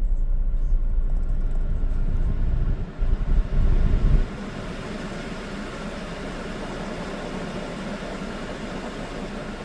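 A 2013 Chevrolet Malibu idling cold with the air conditioning switched on, the extra load on an idle the owner is watching for fluctuation. A steady blowing hiss runs over the idle, and a heavy low rumble stops abruptly about four seconds in.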